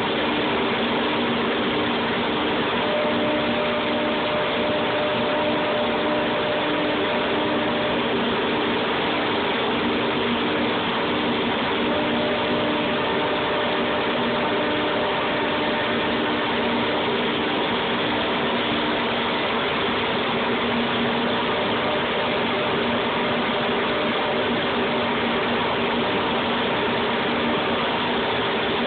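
VR 1005 TT CNC router running, its spindle heads working a panel with the dust extraction on: a steady mechanical noise with a hum of several tones. A higher tone comes in twice for a few seconds.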